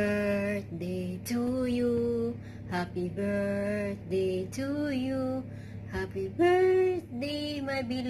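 Background music: a slow song with a singing voice holding long notes, one after another.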